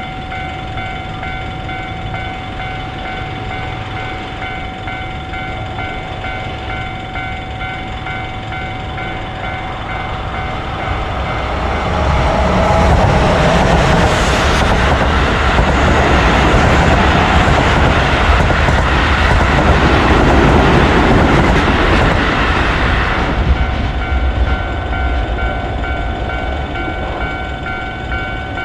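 Japanese railway level-crossing warning bell ringing in a steady repeating ding-ding. About eleven seconds in, a train passes for some twelve seconds, its wheel and motor rumble drowning out the bell, and then the bell rings on alone.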